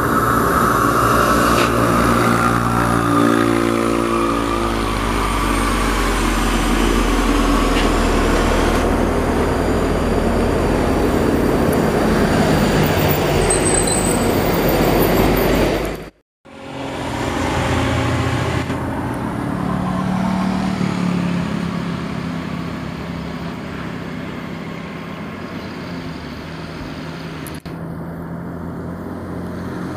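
Diesel engine of a loaded rigid truck labouring up a steep grade as it passes. After an abrupt cut about halfway, a Mitsubishi tanker truck's diesel engine pulls uphill toward the microphone.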